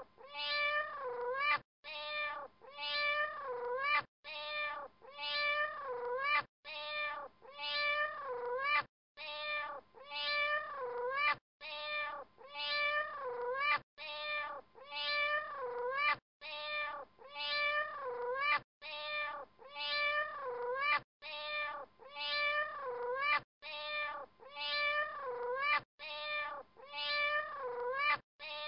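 A short clip of high, pitched calls that waver and dip in pitch, looped over and over: the identical pattern repeats about every two and a half seconds, with a brief break between repeats.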